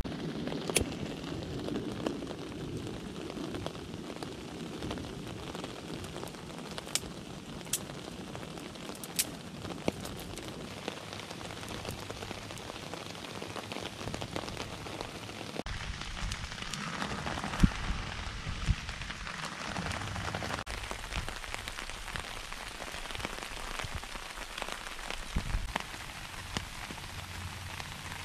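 Steady rain falling on leaf litter and ground, an even patter with scattered sharp ticks of single drops.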